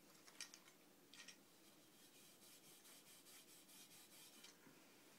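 Near silence: room tone with a few faint clicks and some light rustling.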